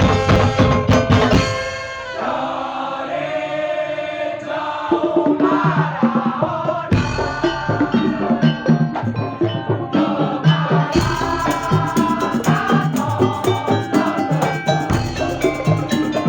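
Madurese daul (tongtong) troupe playing loud live percussion music: fast beaten drums and wooden percussion under a ringing melodic line. About two seconds in the percussion thins out, leaving held melodic tones, and the full beat comes back about five seconds in.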